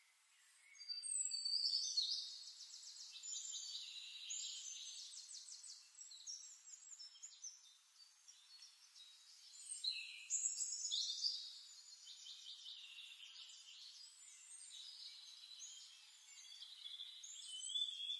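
Birdsong: a long run of rapid trills and high chirps and whistles that begins about a second in.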